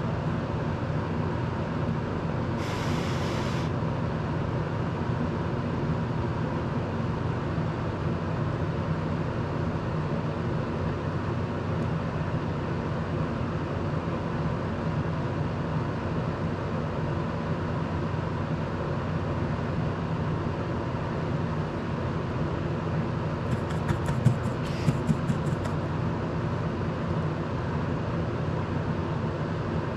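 Desk fan running with a steady whir while someone solders; a short hiss about three seconds in and a quick run of small clicks a little past the middle.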